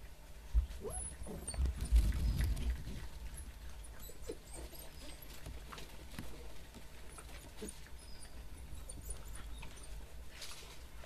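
African wild dog pups squeaking and whining as they scuffle and tug at chunks of meat, with scattered small scrabbling clicks. A few low thumps come in the first three seconds, the loudest about half a second and two seconds in.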